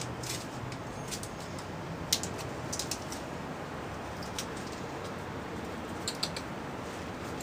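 Two ferrets moving about on a bed sheet: scattered short clicks and scratches over a steady hiss. The sharpest click comes about two seconds in, with small clusters about three and six seconds in.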